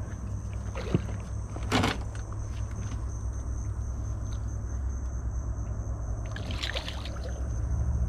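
A hooked bass splashing in the water beside the boat, over a steady low rumble and a high insect drone, with a sharp knock about a second in.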